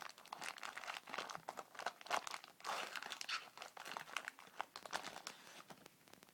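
Trading card pack's foil wrapper crinkling and tearing as it is opened by hand, in irregular crackles that thin out near the end.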